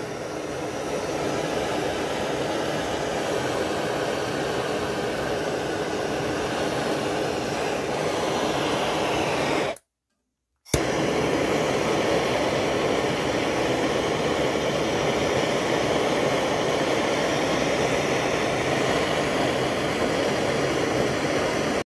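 Handheld gas torch flame burning steadily with a continuous rushing hiss, heating a copper pipe fitting to sweat a soldered joint. It cuts off for about a second near the middle, then carries on the same.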